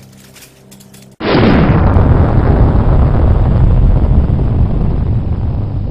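Thunderclap sound effect: a sudden loud crack about a second in, followed by a long rumble that slowly fades. Before it, a faint crackle over a low hum.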